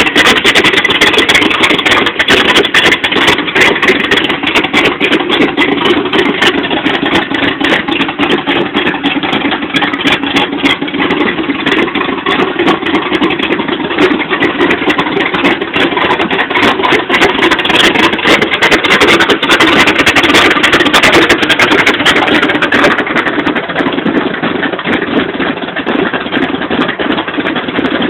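The V8 engine of an '86 Chevy pickup with a Comp Cams Extreme Energy camshaft idling rough and loud. It runs steadily as a fast, uneven stream of exhaust pulses.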